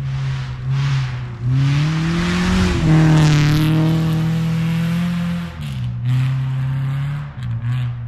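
1998 Subaru Impreza 2.5RS rally car's flat-four engine revving hard as the car accelerates in and past, pitch rising to a loud peak about three seconds in and holding high. The revs then fall and climb again several times with quick lifts and gear changes near the end, with the hiss of tyres throwing snow around the pass.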